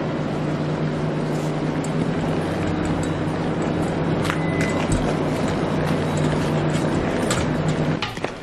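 A steady, low engine hum with a few light clicks over it, cutting off suddenly near the end.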